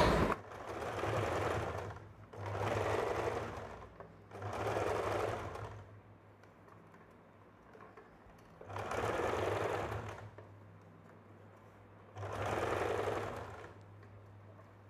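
Allure electric sewing machine stitching fabric in five short runs of a second or two each, stopping briefly between runs, with a longer pause near the middle.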